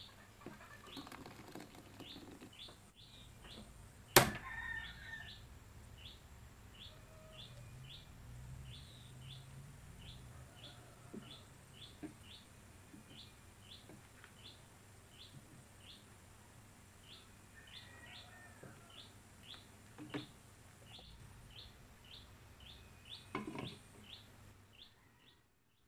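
A small bird chirping over and over, about two short high chirps a second. Kitchen sounds sit beneath it: one sharp metal knock about four seconds in, and a clink near the end as a glass lid goes onto a stainless steel pot.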